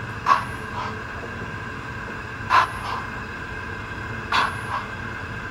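Roco HO-scale model of the BR 10 002 steam locomotive running very slowly: soft puffs like chuffs come in pairs about every two seconds, over a steady faint hum.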